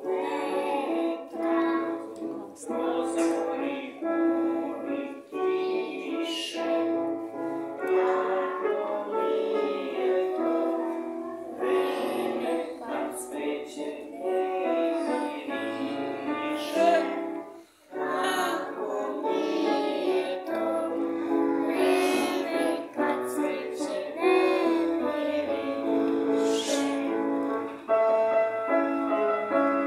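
A group of young children singing a song together with piano accompaniment, with a short break about two-thirds of the way through.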